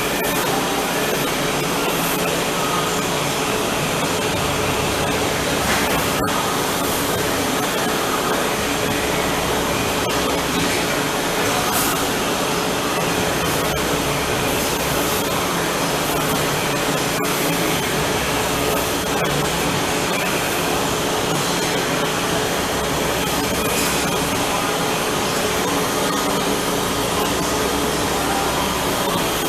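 Steady, loud whirring of machine-shop equipment with a constant hum, as the welded embossing-roll journal is worked toward machining.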